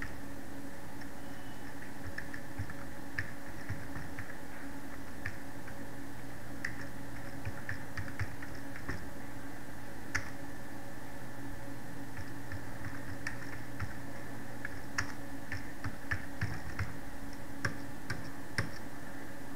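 Computer keyboard typing: irregular keystroke clicks, with short runs and pauses, over a steady background hum.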